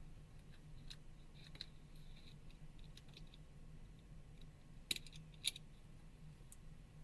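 Faint clicks and light taps of small phone parts and tools being handled, with two sharper clicks about five seconds in, over a steady low hum.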